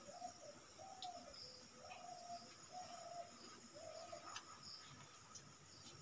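Faint bird calls: a series of five short, even hooting notes, roughly one a second.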